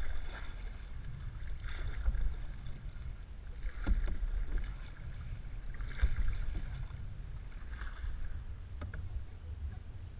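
Canoe paddles dipping and pulling through the water, a splashing stroke about every two seconds, over a steady low rumble of wind on the microphone. A few sharp clicks come in between the strokes.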